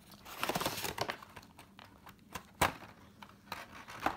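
Crinkling and rustling of a clear plastic packing tray and cardboard box as a model airplane is slid out and handled, with a few sharp plastic clicks, the loudest about two and a half seconds in.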